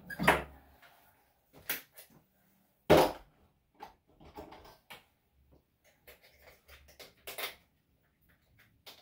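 Several scattered knocks and clunks of equipment being handled at the grooming table, the loudest about three seconds in, with lighter clatter in between.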